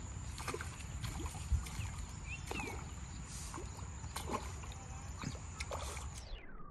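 Water trickling and splashing at the water's edge, with scattered small clicks and a brief high chirp. The sound turns dull near the end.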